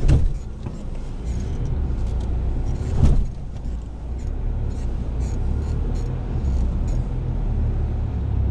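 4WD engine running low and steady, heard from inside the cab as the vehicle crawls over a rocky, water-filled track, with two heavy thumps as it jolts over the rock, one at the very start and one about three seconds in.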